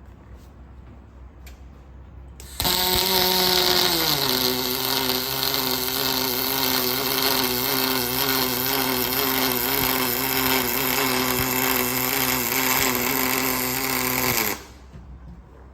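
Aluminium welding arc struck for one continuous weld run of about twelve seconds: a loud, steady buzzing crackle over hiss that starts suddenly a few seconds in, settles to a slightly lower pitch about a second later, and stops abruptly near the end.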